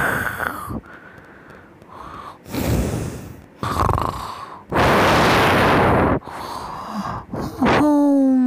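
A series of loud breathing sounds, about four long rushes of breath a second or two apart. Near the end comes a pitched, voice-like tone that slides slowly down.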